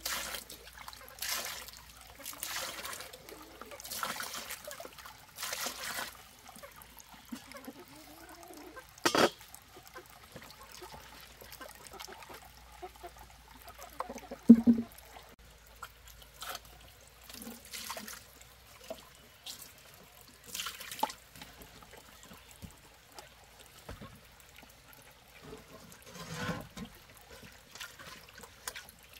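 Water splashing and trickling, with repeated pouring or scooping sounds over the first few seconds. A few sharp knocks and clatters come about nine and fourteen seconds in, the later one the loudest, and another near the end.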